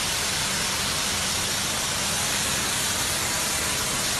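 Steady hiss of a hose jet spraying water, with a low steady hum underneath.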